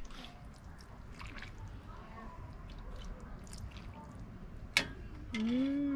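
Ladle scooping soup broth and vegetables from a pot into a bowl: faint liquid slopping and small clinks, with a sharper click near the end. A short hummed "mm" follows right at the end.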